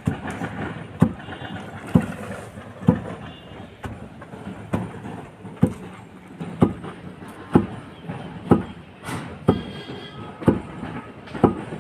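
Long wooden pestle pounding red chillies in a hollowed-log wooden mortar (Kashmiri kanz and mohul). It lands with a dull thud at a steady rhythm of about once a second.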